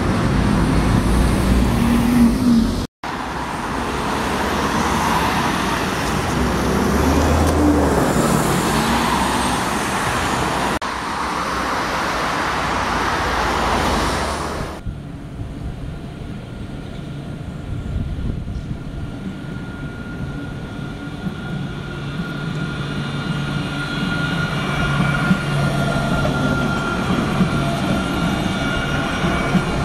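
Street traffic in several short takes: a double-decker bus's engine running as it turns, then cars and lorries passing on a main road. In the second half, quieter, a tram runs along its track with a steady whine.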